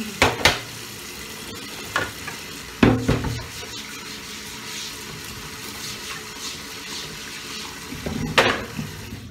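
Kitchen tap running steadily into a sink, with glass and dishes knocking and clinking a few times, loudest about three seconds in and near the end. The running water cuts off suddenly near the end as the tap is turned off.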